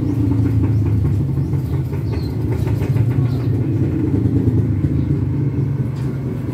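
A loud, steady low motor rumble with a constant hum that does not change.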